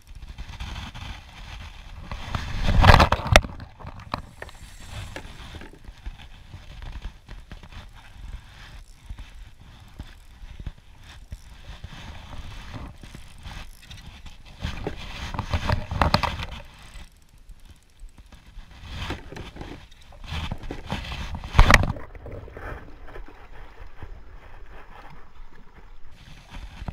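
Spinning reel being cranked while a fish is fought from a kayak, with handling knocks and rustles on the hull and three short, loud bursts of noise: one a few seconds in, one past the middle and one about three-quarters through.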